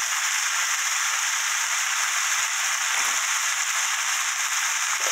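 Aged kimchi, fish cake and green onion sizzling steadily in oil in a hot frying pan.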